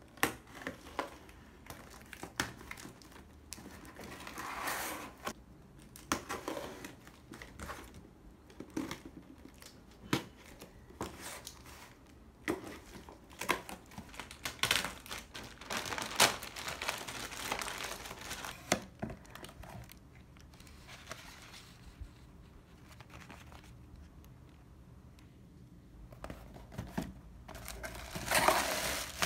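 Cardboard parcels being unboxed by hand: a box cutter slitting the packing tape, then cardboard flaps pulled open, rustling and scraping in irregular bursts. The crinkling gets louder and denser near the end.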